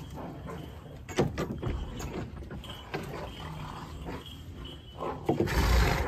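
Farmyard animals moving out of a barn: a short falling animal call about a second in, a few knocks, and a loud gust of wind buffeting the microphone near the end.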